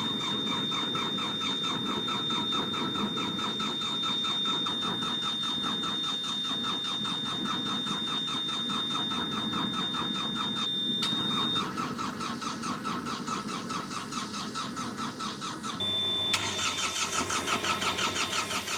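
A Hitachi EX55UR mini excavator's diesel engine being cranked over by its starter in bitter cold after glow-plug preheating, turning over rhythmically without catching; a steady high-pitched beep sounds for the first two-thirds and the cranking pulses grow stronger near the end.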